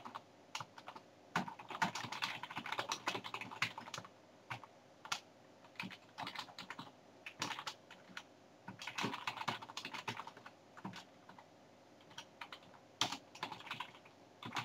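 Typing on a computer keyboard: bursts of rapid keystrokes separated by short pauses.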